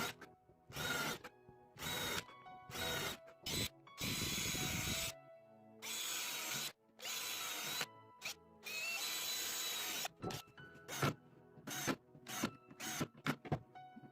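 Power drill run in short bursts and several longer runs of about a second, then a string of sharp clicks and knocks near the end. Background music with held tones plays underneath.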